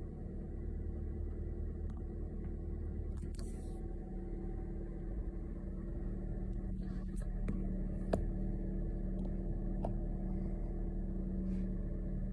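Steady low hum of a car's engine and tyres heard inside the cabin while driving in rain, with a few scattered sharp ticks and taps.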